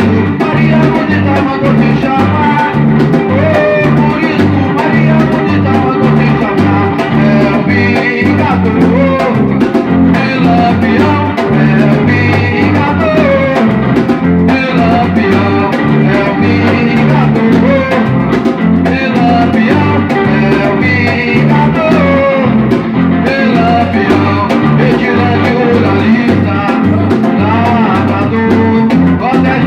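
Samba-reggae band playing an instrumental passage: a steady, repeating low drum rhythm under a melody line, with no singing.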